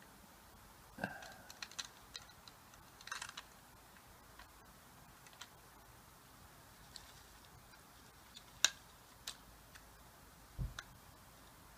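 Scattered light clicks and taps of fingers handling the bucket and linkage of a model RC wheel loader, with a sharper click about three-quarters of the way through and a soft thump near the end.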